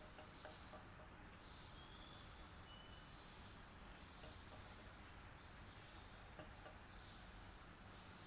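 Electric fan running with a faint, even hiss, under a steady high-pitched trill.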